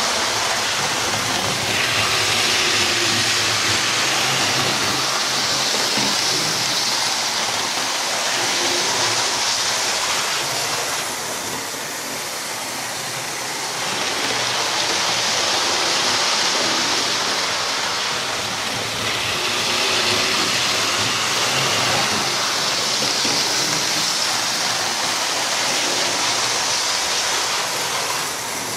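Hornby Class 43 HST model train running fast around the layout: a steady rushing of its motor and wheels on the track, swelling and fading as it laps the circuit, with a quieter dip about a third of the way through.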